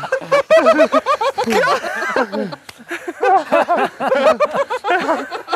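Several men's voices shouting and laughing over one another, the words unclear.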